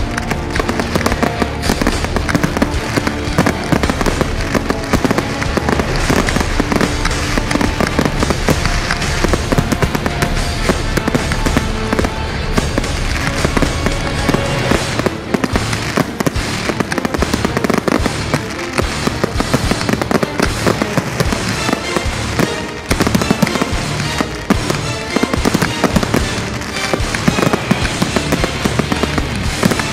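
Fireworks display in full swing: shells bursting and crackling in rapid, continuous succession, with music playing along.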